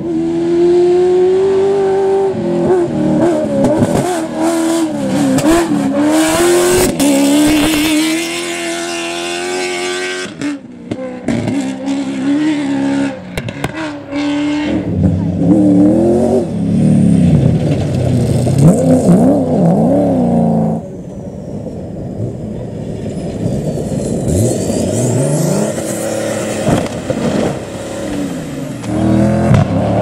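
Cross-country rally-raid 4x4 cars driven hard on a gravel stage, their engines revving up and down through gear changes as they pass. The sound breaks off abruptly a few times between cars.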